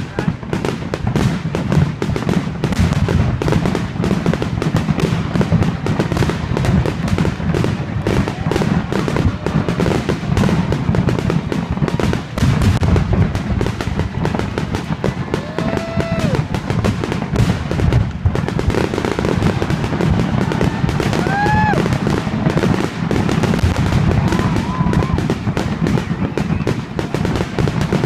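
Aerial fireworks going off in a rapid, continuous barrage of overlapping bangs and booms, with a few short pitched whistles or whoops over them.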